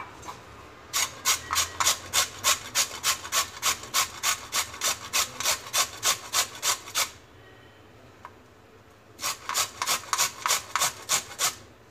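A carrot being grated on a round stainless-steel hand grater: even rasping strokes, about four a second, for some six seconds, then a pause of about two seconds and a second, shorter run of strokes.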